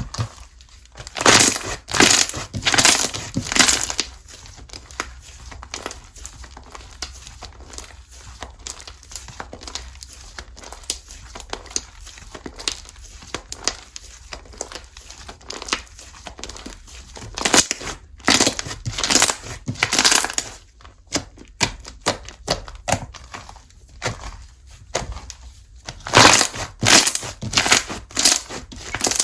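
Slime being squeezed, poked and pressed by hand, giving runs of quick crisp crackles, loudest in three clusters near the start, in the middle and near the end, with softer crackling between.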